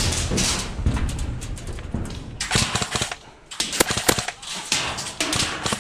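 Airsoft guns firing several short bursts of rapid shots, with rustling and rumbling noise on the microphone in between.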